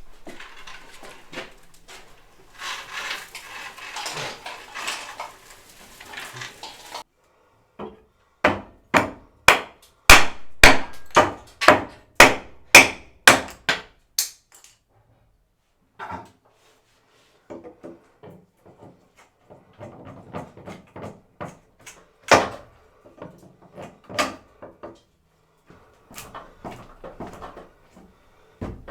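Hammer blows on wood during demolition: a run of about a dozen sharp strikes, about two a second, in the middle, with scraping and rattling of loose wood before it and scattered knocks and clatter after.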